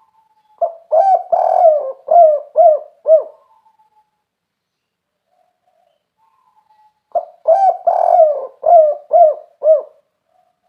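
Spotted dove (tekukur) singing its 'kuk 3' coo twice, about six seconds apart. Each phrase opens with a short note and a longer rolling coo, then ends in three separate 'kuk' notes.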